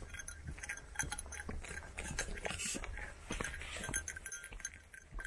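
Footsteps crunching along a dirt-and-gravel forest trail, with a light metallic clinking mixed in throughout.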